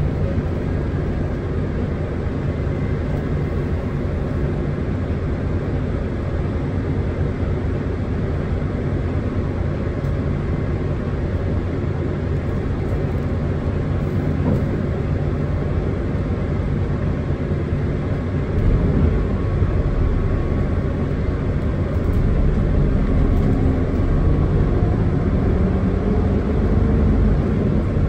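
Running sound of a Hino Blue Ribbon City Hybrid city bus heard from inside the cabin: a steady low rumble of drivetrain and road noise. It grows a little louder about two-thirds of the way in, and a pitch climbs gently near the end as the bus gathers speed.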